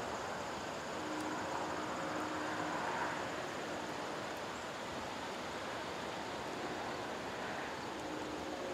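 A steady, even rushing noise, like wind or surf, with a few faint held tones underneath.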